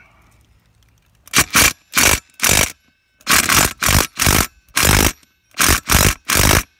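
Ridgid brushed cordless impact driver hammering in repeated short bursts, about two a second, starting about a second in, as it tries to loosen a lug nut. The nut is not budging.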